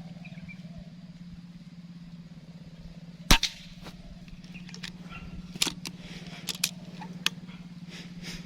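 PCP air rifle firing a single shot, a sharp crack about three seconds in. Several smaller sharp clicks follow over the next few seconds, over a steady low hum.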